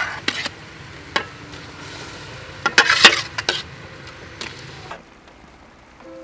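Metal spoon clinking and scraping against an aluminium pot as cooked beetroot slices are scooped, with a cluster of clinks about three seconds in, over the steady sizzle of beetroot slices dropping into bubbling sugar in a wok.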